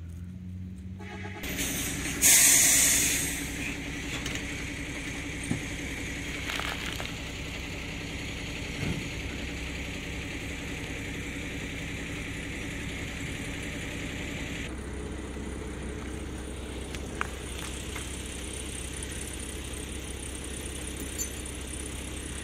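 A motor running steadily, a low even hum, with a loud hiss about two seconds in.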